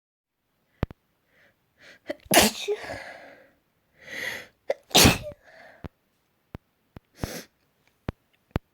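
A woman sneezing twice, about two and a half seconds apart, each sneeze preceded by short breaths in as it builds up. A few sharp clicks are heard between and after the sneezes.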